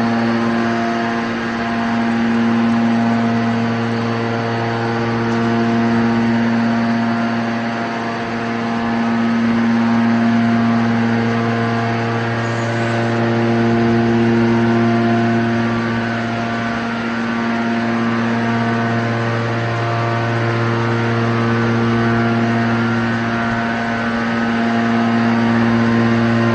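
Scrap metal baler's hydraulic power unit running with a steady, loud droning hum. Its loudness swells and eases every few seconds.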